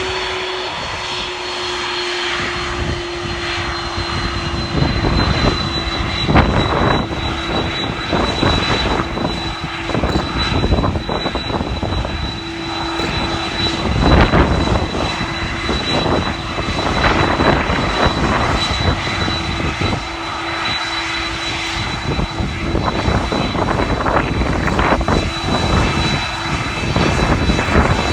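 Boeing 767-300ER's General Electric CF6 turbofan engines running steadily: a high whine and a lower hum over a rushing noise that swells and fades.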